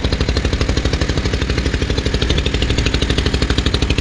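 A small fishing boat's motor running steadily under way, its exhaust pulsing rapidly and evenly with a strong low drone.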